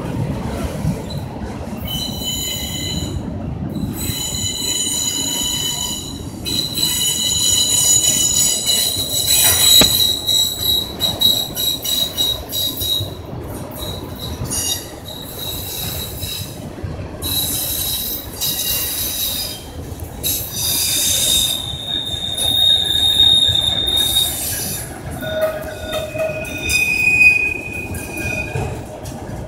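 CN freight train's wheels squealing as the cars roll past. Shrill tones come and go in bouts over a steady rumble of wheels on rail, typical of flanges rubbing as the train curves through the junction onto the diverging route.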